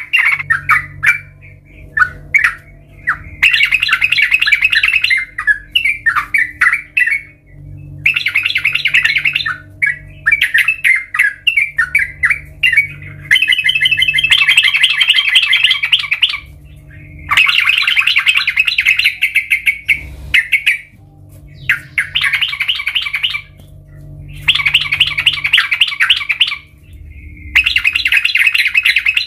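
Yellow-vented bulbul (trucukan) singing: repeated bursts of rapid chattering notes, each lasting two to three seconds, with short pauses between them.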